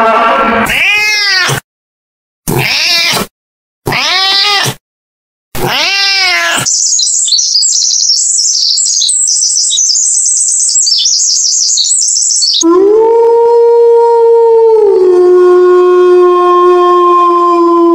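A sequence of animal calls. First come four short calls that each rise and fall in pitch, with silent gaps between them. Then a small songbird chirps rapidly in a high voice. Last, a grey wolf howls in one long, steady howl that drops a step in pitch partway through.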